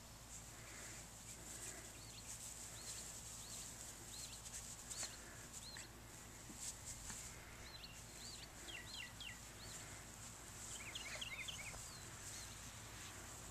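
Faint outdoor birdsong: short, scattered chirps, with a quick run of falling chirps about nine seconds in and another about eleven seconds in, over a steady high hiss.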